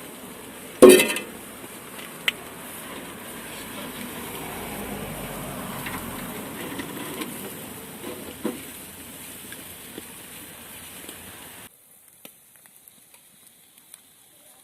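Marinated chicken sizzling on a grill grate over a campfire, with a sharp, loud knock about a second in and a few small clicks. The sizzle swells in the middle and then drops away suddenly near the end.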